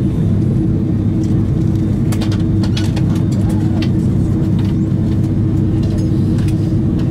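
Steady low cabin drone inside an Airbus A330-200 on the ground after landing, with a constant hum tone running through it. A few faint clicks and distant voices sit above the drone.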